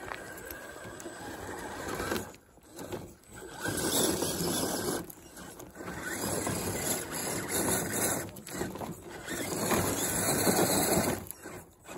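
Reely Raven RC crawler's electric motor and drivetrain running in spurts as it crawls over rough ground, cutting out briefly several times.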